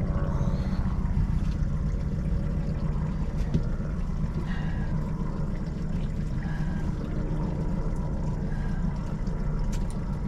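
Small outboard motor on the boat idling steadily with an even low rumble, and a few light clicks from handling fishing gear.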